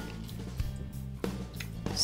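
Background music with a steady low bass line, with a few faint wet squishes of ripe tomatoes being squeezed by hand for their juice.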